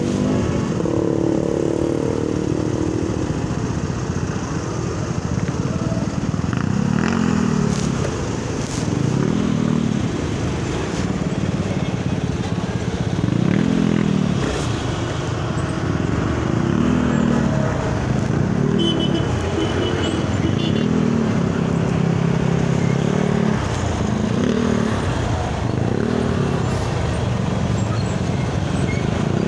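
Motorcycle engine in slow stop-and-go traffic, its pitch rising and falling again and again as it pulls forward and eases off, over the steady noise of surrounding cars and a bus.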